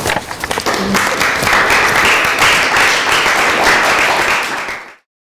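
Small audience applauding, the clapping swelling about a second in and then fading out just before the end.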